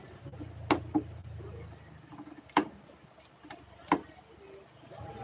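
A handful of short, sharp clicks or taps at uneven intervals, about five in five seconds, over a faint low hum.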